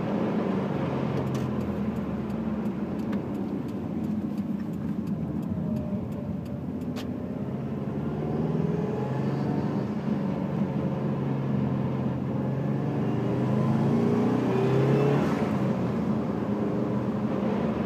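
Car engine running, its pitch rising briefly near the end as it is revved, with a grinding noise that the owner links to the turbocharger.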